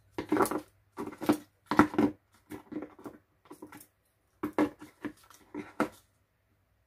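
Irregular short clicks, taps and knocks of small plastic pieces and packaging being handled in a cardboard box: the MacBook Air's white power adapter and its plug piece being picked up and set down, about ten small sounds with quiet gaps between them.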